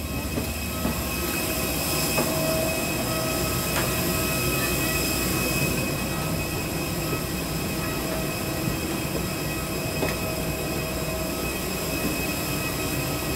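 Steady high-pitched whine over a rumble from jet aircraft machinery on the apron, with a few faint knocks.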